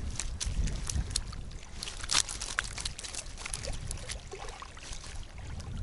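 Water splashing and trickling in irregular small splashes over a low wind rumble.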